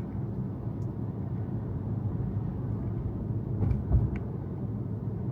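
Road and tyre noise of a moving Tesla heard from inside the cabin: a steady low rumble, with one low thump about four seconds in.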